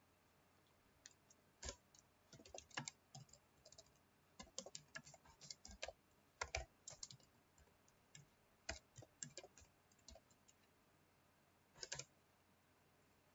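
Typing on a computer keyboard: quiet, irregular key clicks in short runs, busiest in the middle, ending with a last couple of keystrokes near the end.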